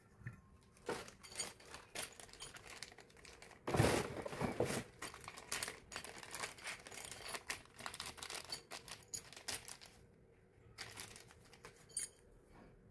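Plastic packaging crinkling and rustling in the hands as a small bag of spare parts is opened. There is a louder burst of crackling about four seconds in, a brief lull, and then a sharp click near the end.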